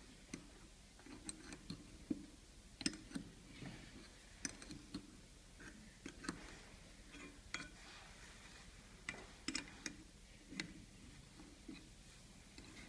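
Open-end spanner clicking against the nuts and steel plates of a homemade chisel-holding jig as its clamping bolts are tightened: faint, irregular metal ticks, roughly one or two a second.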